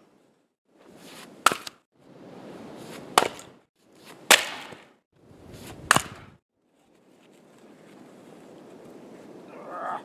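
Firewood being split by hand: four sharp splitting strikes about a second and a half apart, each preceded by a short rustling build-up, then a longer rustling stretch with no strike.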